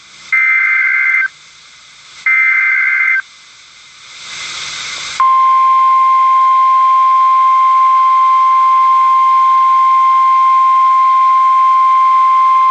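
NOAA Weather Radio Emergency Alert System broadcast. Two roughly one-second bursts of warbling SAME header data tones come first, then a second of radio hiss. About five seconds in, the steady single-pitch weather radio warning alert tone starts: it signals a warning-level alert, here a severe thunderstorm warning.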